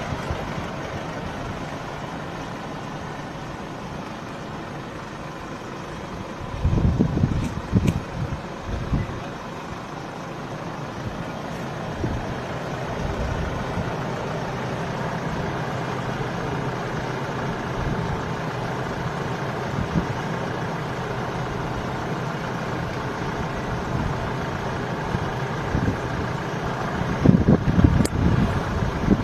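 Vehicle engines idling in a stopped queue of traffic, a steady low hum. Short bursts of low rumbling come about seven seconds in and again near the end.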